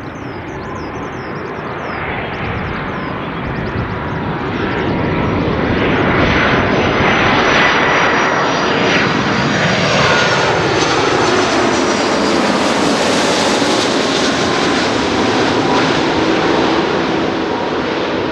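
Jet airliner's two Rolls-Royce Trent 772B turbofans at landing-approach power, growing louder as the Airbus A330-200 flies low overhead. The engines' whine drops steeply in pitch as it passes, about ten seconds in, leaving a steady rumble as it heads away.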